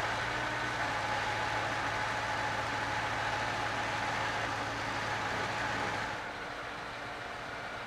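Semi-truck's engine idling with a steady hum, turning a little quieter about six seconds in.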